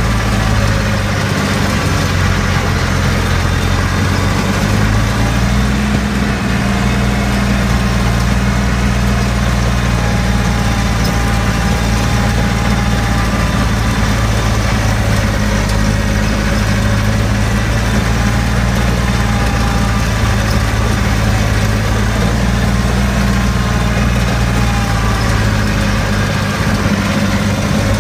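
Small farm tractor's engine running steadily as the tractor drives along a sugarcane row, heard close from the driver's seat.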